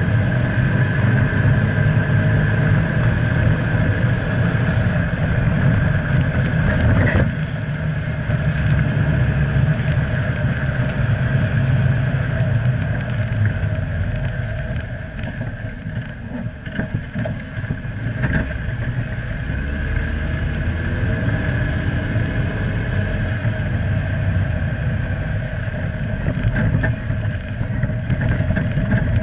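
Driving noise of a Jeep Wrangler JKU Rubicon on pavement, picked up under the front axle: a steady low rumble of tyres and drivetrain that eases off for a few seconds past the middle before building again.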